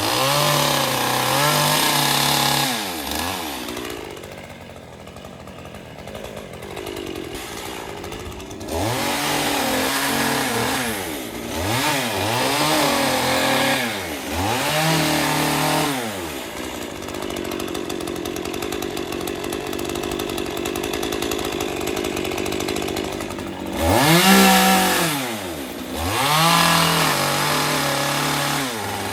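Chainsaw engine revving up and down over and over as it cuts palm fronds, dropping back to a lower, steadier run between cuts, with a quieter spell about four seconds in and its loudest rev a little past the middle.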